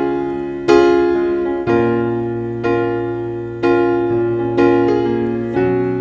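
Background piano music: gentle chords or notes struck about once a second, each fading before the next.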